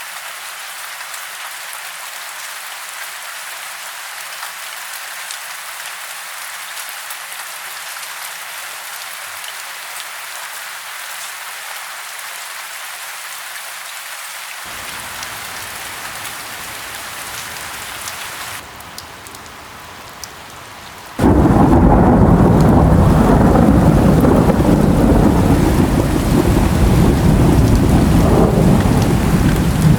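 Steady rain hiss. About two-thirds of the way through, a loud, deep rumble of thunder with heavy rain starts abruptly and keeps going.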